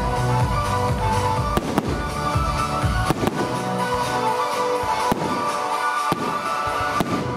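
Aerial firework shells bursting with sharp bangs, about one a second, over loud music with sustained tones.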